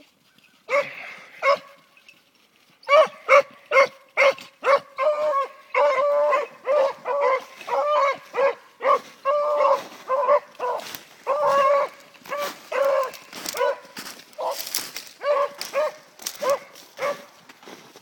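A hound baying: two single barks about a second in, then from about three seconds in a long rapid string of short, pitched barks, two or three a second, that stops near the end.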